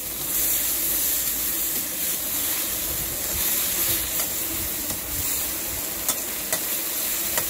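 Cooking sauce sizzling in a hot wok as diced chicken is stir-fried with a metal spatula, with a few sharp clicks of the spatula against the wok near the end.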